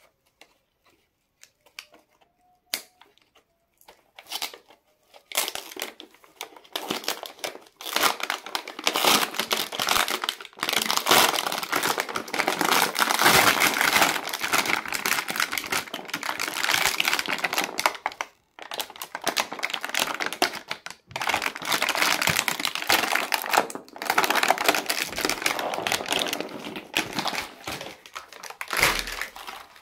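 Clear plastic blister packaging crinkling and crackling as it is handled and pulled off its card backing, after a few isolated clicks. The crinkling starts about five seconds in and goes on with a few short breaks.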